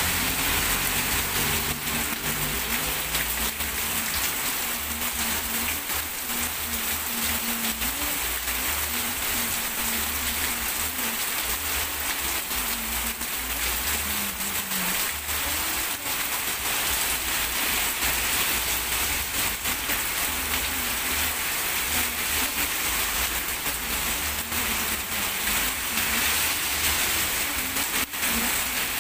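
Heavy rain falling on a flooded asphalt street and puddles: a steady, dense hiss that does not let up.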